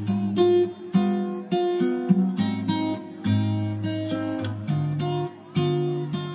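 Background music: an acoustic guitar playing a plucked melody, each note starting sharply and fading.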